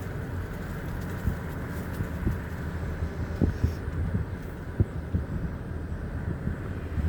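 A vehicle running, heard from inside the cabin: a steady low hum with a few soft thumps scattered through it.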